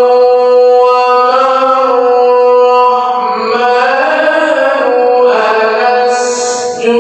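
Melodic Qur'an recitation (tilawah) by a male qari: long held notes with slow ornamented turns in pitch, broken by a brief hiss near the end.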